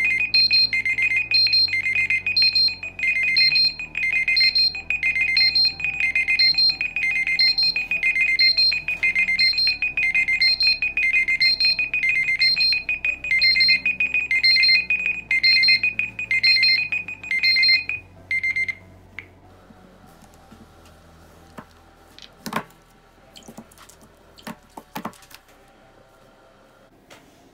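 Several smartphones' timer alarms ringing at once: overlapping, evenly repeating high beeps over a steady tone and soft low notes, which stop about 18 seconds in. A few sharp knocks follow as the phones are handled.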